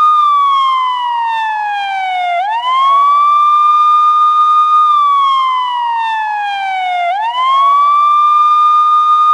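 Police siren sounding a slow wail: the tone climbs quickly, holds high for about two seconds, then slides slowly down before climbing again, going through this cycle twice.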